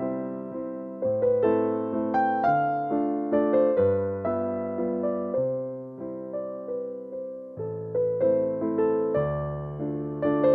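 Background music: a gentle piano piece, notes and chords struck about once or twice a second and left to fade.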